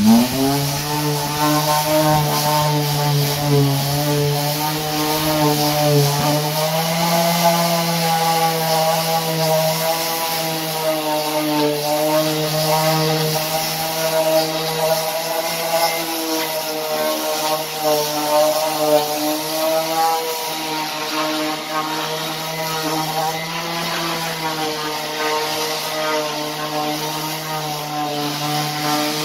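Electric random orbital sander switching on and running steadily against plywood, smoothing body filler on a wooden window box before priming. Its hum rises slightly in pitch about six seconds in.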